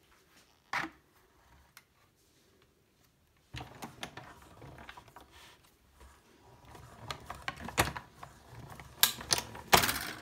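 Hand-cranked Stampin' Up! die-cutting machine being cranked, the cutting plates and dies rolling through with a dense run of mechanical clicks and rattle. It starts a few seconds in after a single click, grows louder, and the sharpest clicks come near the end.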